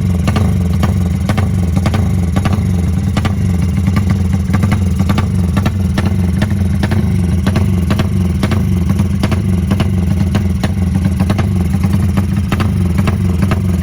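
A 250cc motorcycle engine running steadily through a Herex aftermarket racing exhaust, a loud, deep, even exhaust note with sharp ticks a few times a second.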